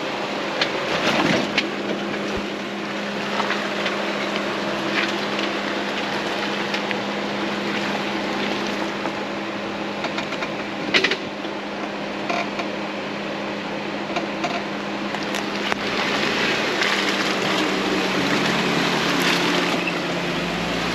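Jeep engine running steadily at low revs as it crawls a rooty off-road trail, with a few scattered knocks and crackles. The engine grows louder about three-quarters of the way through.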